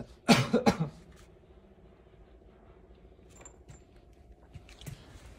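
A man's short bout of coughing just after the start, a few quick coughs in under a second. Then faint room tone with a low steady hum and a few small clicks.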